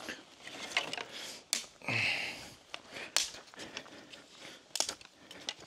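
Firewood and rocks being handled in a fire pit: a few short knocks and some rustling.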